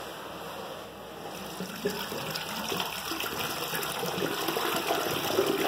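Water gushing out of a white PVC sewer check valve into a drain inspection box, the valve letting the flow through. The rush starts up about two seconds in and grows steadily louder.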